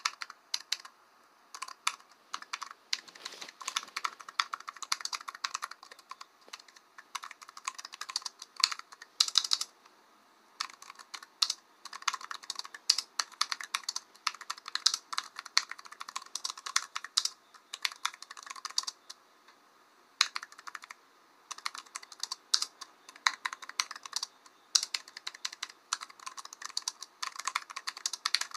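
Typing on a computer keyboard: rapid runs of key clicks, broken now and then by pauses of about a second.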